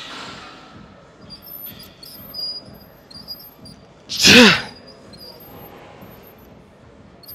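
A single loud strained grunt of exertion from a lifter pushing through a rep, about four seconds in. It lasts about half a second, and its pitch rises and then falls.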